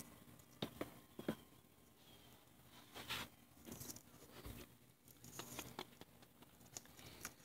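Faint scattered rustling with a few soft clicks in a small, quiet room: a few sharp ticks in the first second and a half, a brief louder rustle about three seconds in, and more faint rustling after.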